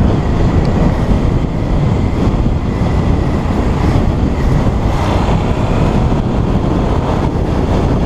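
Motorcycle running steadily while riding, its engine and the rush of wind over the helmet microphone filling the sound.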